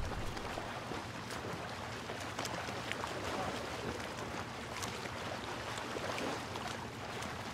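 Harbour water ambience: a steady wash of water with scattered small clicks and splashes, over a faint steady low hum.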